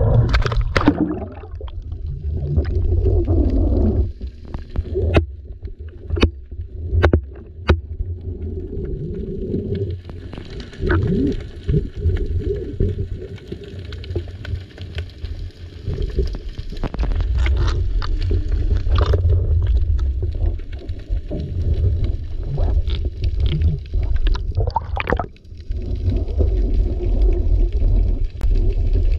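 Underwater sound picked up by a GoPro Hero 8 in its housing: a splash as it enters the water near the start, then a steady muffled low rumble of water moving around the housing, broken by scattered sharp clicks and knocks.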